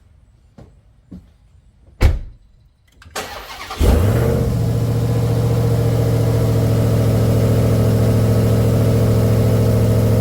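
A few light clicks and a loud thump, then the Dodge Charger Hellcat widebody's supercharged 6.2-litre V8 is cranked and catches about four seconds in. It settles into a steady idle, breathing through a carbon-fibre Legmaker cold air intake.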